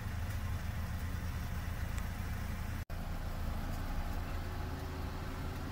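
Car engine idling, a steady low hum heard from inside the car, with a momentary dropout about three seconds in.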